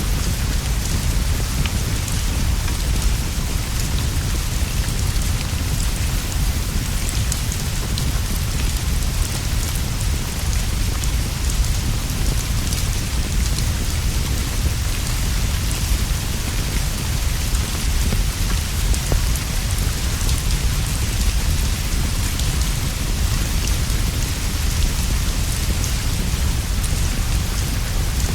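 Steady rain falling, an even hiss over a constant low rumble, with faint scattered ticks.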